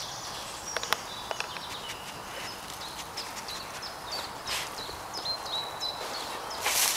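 Small woodland birds chirping in short high notes, over soft rustling of dry leaf litter under a dog's paws, with a few sharp twig-like clicks about a second in. A louder rustle of leaves comes near the end.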